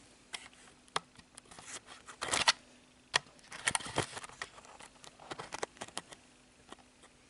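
Handling noise from a handheld camera: scattered light clicks and taps, with two louder rustling bursts about two and a half and four seconds in as the camera is swung around.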